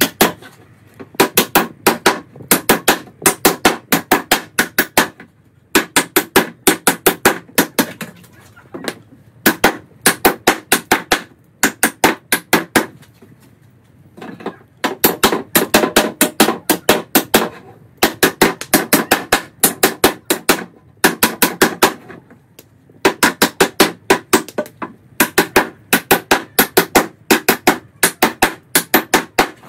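Claw hammer driving nails through wooden slats: rapid runs of ringing blows, several a second, broken by short pauses.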